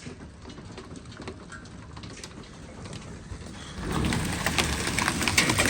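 Hailstones ticking and clattering, faint and sparse at first, then suddenly much louder and denser about four seconds in.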